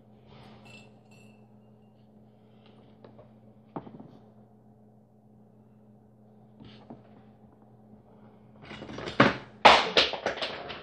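Handling noise at a workbench: a few faint clicks and taps from a screwdriver and wires, then a burst of louder knocks and rattles near the end, over a low steady hum.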